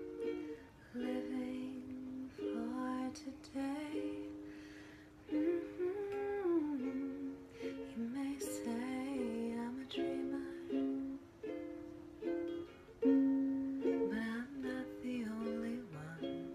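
Ukulele strummed in chords, with a woman singing along in a gently gliding melody.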